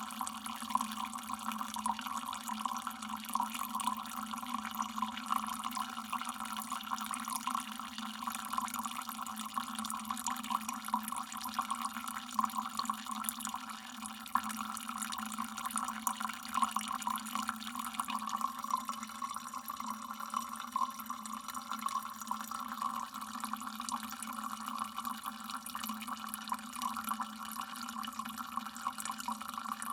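Water dripping continuously, many small drips falling close together with no pauses.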